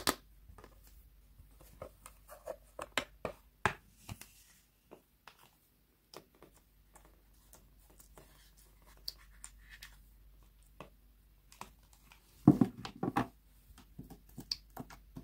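Fingernails and fingertips tapping and clicking on a hard plastic slime storage tray: scattered light taps, with a denser run of louder clicks a few seconds before the end.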